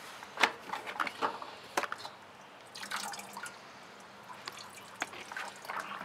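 Plastic latches on a MacAllister 30-litre wet-and-dry vacuum clicking open and the motor head being lifted off its stainless tank. Scattered sharp clicks and knocks, most of them in the first two seconds.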